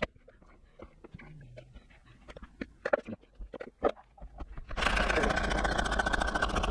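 Light clicks and knocks as the lid of a hand-pulled mini chopper is taken off and put back on. About five seconds in, the chopper starts whirring loudly with a fast rattle as its cord is pulled, blending wild garlic pesto.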